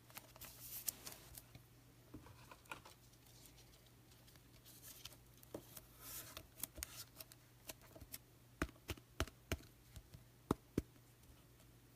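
Trading cards being handled: faint rustles of card stock and plastic sleeves with scattered small clicks, and a run of sharper taps about nine to eleven seconds in.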